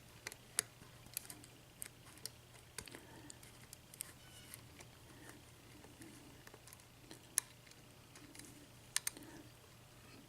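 Irregular light clicks and scrapes of a small lock pick working the pin stacks of a six-pin ERA euro cylinder, lifting the pins one by one to set them against the tension, a handful of clicks sharper than the rest. A faint steady low hum runs underneath.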